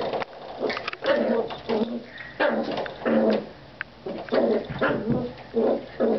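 Jack Russell Terrier puppy giving repeated short growls and yips, about ten in all, as it bites and paws at a door stop.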